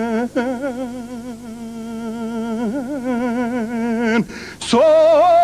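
A man's voice singing long, drawn-out held notes with a strong waver, moving slowly between pitches. Near the end it breaks off with a brief sharp noise, and a louder, higher steady tone begins.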